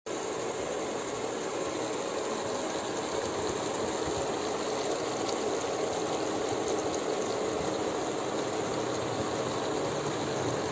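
Creamy chicken-and-mushroom sauce simmering in a frying pan on an induction cooker: a steady hiss with a few faint small pops.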